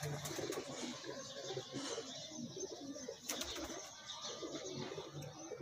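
Domestic pigeons cooing at a low level, with a brief click about three seconds in.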